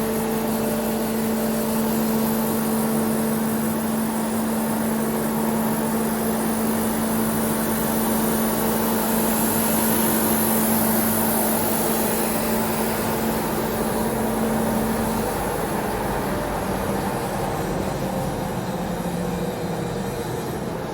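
Hammer mill pulverizer running while grinding turmeric: a steady, dense mechanical noise with a steady hum that drops out about fifteen seconds in.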